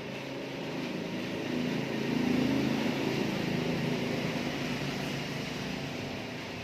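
A motor vehicle's engine passing, growing louder to a peak about two and a half seconds in and then fading.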